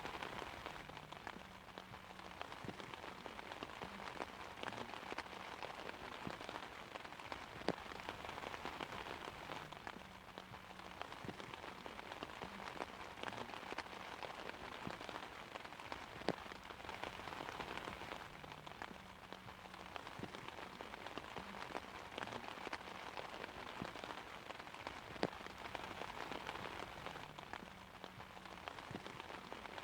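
Steady rain pattering on an umbrella, with a few sharper single drop hits scattered through it.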